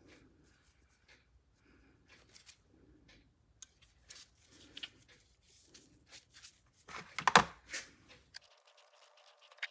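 Hand work on metal pliers: scattered light scrapes and clicks, with a louder, rougher scraping about seven seconds in. Near the end the sound changes to a faint steady background with a few thin tones.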